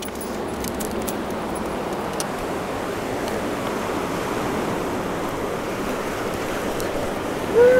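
Fast river rapids rushing in a steady wash of water noise, with a short voice sound that rises and falls near the end.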